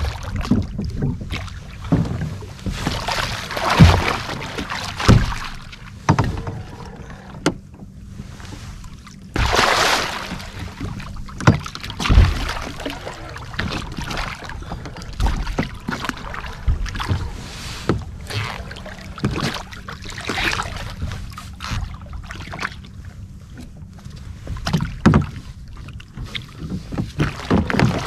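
A large blue catfish splashing and thrashing at the surface beside a kayak as it is landed, with repeated knocks and bumps against the kayak's hull. The loudest splashes come about four seconds and ten seconds in.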